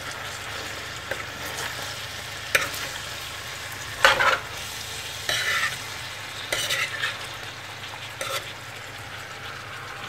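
Meat, peppers and tomatoes sizzling in a wide, shallow frying pan, with a metal spoon stirring and scraping through them in short strokes every second or two.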